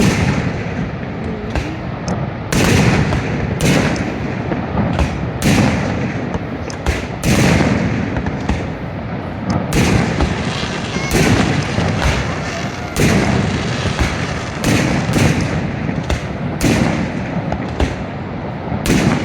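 Fireworks display: a rapid, irregular series of loud bangs and booms, many in quick succession, over a continuous din.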